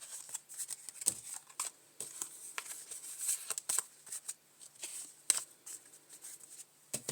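Playing cards being handled on a table: an irregular run of light clicks and rustles, several a second, as cards are slid, shuffled and laid out.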